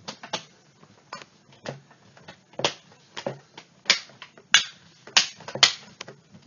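Plastic screen bezel of a ThinkPad Edge laptop being pressed onto the display lid, its clips snapping into place: a series of sharp, irregular clicks, the loudest in the second half.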